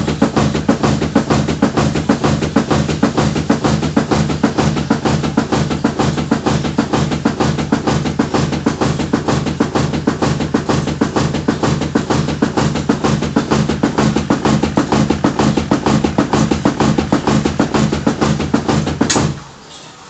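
Fast, steady dhol drumming in the Nashik dhol style, loud and even, dying away about a second before the end.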